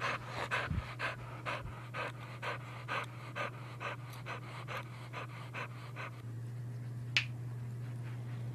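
A springer spaniel panting rapidly, about four breaths a second, stopping about six seconds in; a single sharp click comes about a second later.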